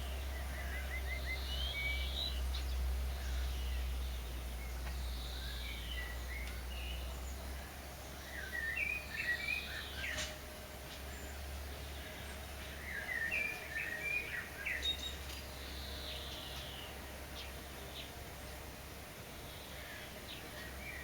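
Songbirds singing: short phrases of chirps and whistles come every few seconds, with the busiest phrases about a third and two thirds of the way through, over a steady low rumble.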